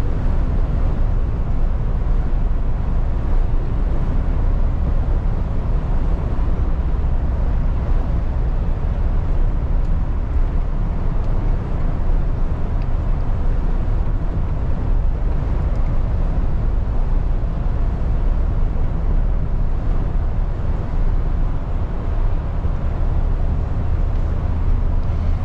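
Inside the cab of a MAN TGX lorry cruising at about 50 mph on a wet motorway: a steady low engine drone with tyre and road noise.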